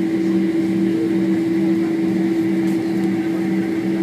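Boeing 767 cabin noise from a forward window seat: a steady hum from the jet engines and aircraft systems, with a lower tone that throbs about twice a second.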